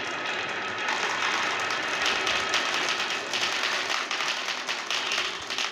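Dozens of marbles pouring out of a plastic toy dump truck's bed and rolling down a wooden slope with a wavy groove, clacking against the wood and each other. The result is a dense, continuous rattle of clicks.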